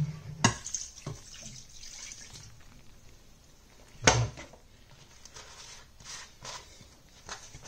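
Soy sauce poured from a bottle, the liquid splashing and dripping for a couple of seconds. A sharp knock about four seconds in, then a few light clicks.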